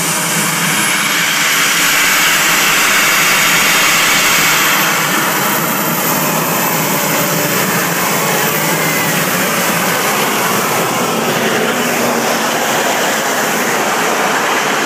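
Pulling vehicle's engine running at full power as it hauls a weight-transfer sled down the track, a loud steady roar that peaks a few seconds in and then eases a little.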